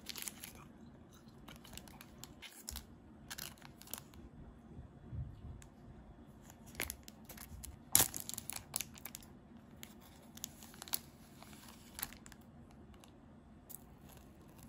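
Thin plastic snack wrapper crinkling, with scattered crackles and a sharp tearing crackle about eight seconds in as it is pulled open. Near the end, soft crackles as a thin, dry sheet snack is torn apart by hand.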